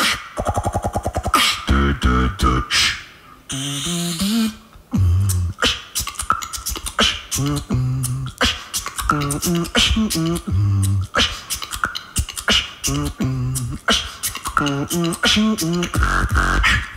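Solo beatboxing into a microphone: a fast rhythm of mouth-made kick, snare and hi-hat sounds with deep pitched bass notes, and a brief hiss about four seconds in.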